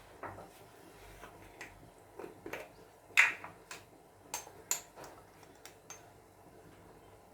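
Scattered light clicks and knocks of kitchen utensils and containers being handled, the loudest a sharp knock about three seconds in, with a few quick ticks after it.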